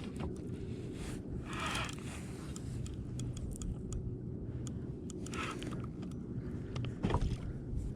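Fishing reels being wound in and tangled line handled: scattered small clicks and scrapes over a low steady rumble, with a few short rushes of noise.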